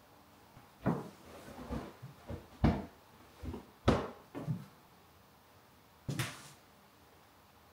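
Irregular knocks and thumps, about eight in all, from framed pictures being handled and set against a wall as they are hung. The two loudest come around the middle, and the last, about six seconds in, has a brief rattling tail.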